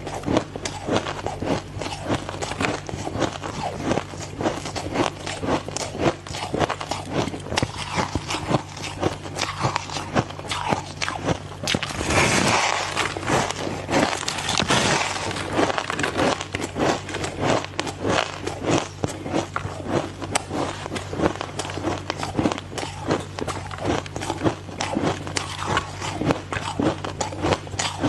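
Ice being bitten and chewed close to the microphone: rapid, continuous crunching, with a louder, denser stretch of crushing a little before the middle. A steady low hum runs underneath.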